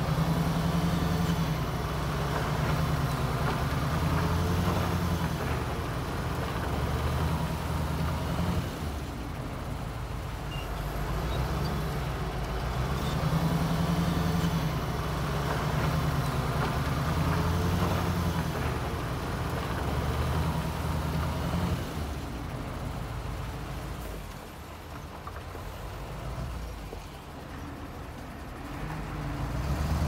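Heavy diesel engine of earthmoving machinery running under load, its note rising and falling in several long surges. It eases off for a few seconds near the end.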